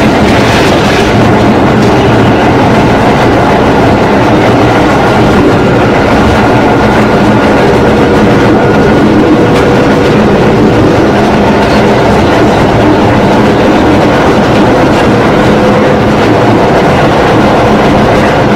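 Loud running noise inside the motor car of an EN57 electric multiple unit, still accelerating at about 70 to 80 km/h. Steady tones from the traction motors and gearing sit over a dense rumble of wheels and running gear.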